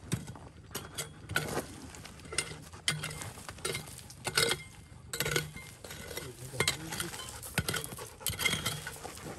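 Irregular scraping with sharp clicks and clinks, about two a second.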